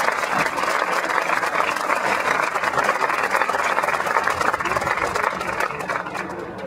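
Crowd in the stands applauding, a dense steady patter of clapping that fades away near the end.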